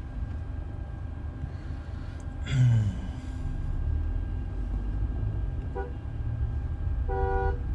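Steady low rumble of the moving SUV heard inside the cabin. About two and a half seconds in there is a short, loud, low sound that falls in pitch. A car horn gives a quick tap about six seconds in, then sounds for under half a second near the end.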